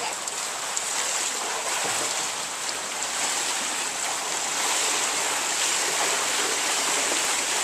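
Steady splashing and rush of water from a swimmer kicking and stroking backstroke in a pool.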